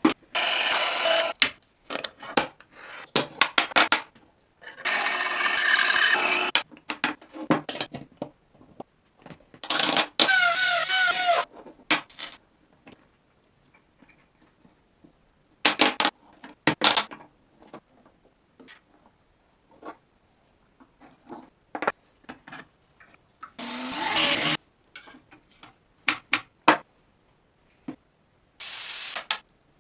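Woodworking tools on wood: several short bursts of a power tool cutting or sanding, with scattered knocks and taps between them and a brief rising whine near the middle.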